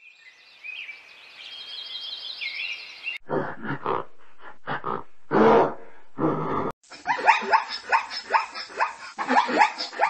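Faint hiss with high chirps for about three seconds, then a gorilla giving a few short, separate grunts. Zebras follow, calling in a quick run of barks, about three a second.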